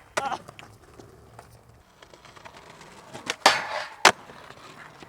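Skateboard at a skate spot: a couple of light clacks near the start, then a loud scrape of about half a second a little over three seconds in, and a sharp clack of the board just after four seconds.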